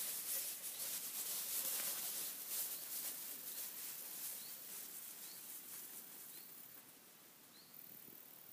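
Rustling and swishing of footsteps through tall meadow grass, dying away after about six seconds, while a bird repeats a short rising chirp about once a second.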